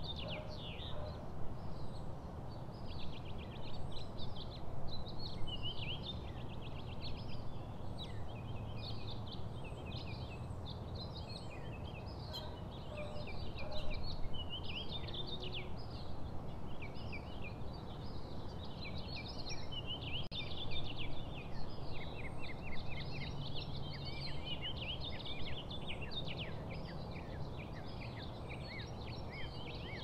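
Many small birds chirping and singing rapid trills together in a continuous chorus, over a steady low background rumble.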